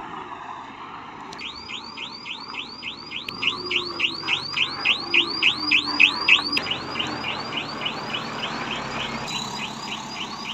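Truck's reversing alarm: a rapid repeated electronic chirp, each note sweeping up and back down, about four a second, starting about a second and a half in and keeping on to the end.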